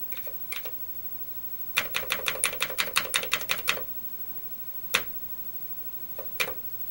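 Keys of a freshly repaired Commodore 128 keyboard clicking as they are tested. There are two single taps, then a fast run of about twenty clicks over two seconds, then two more single clicks.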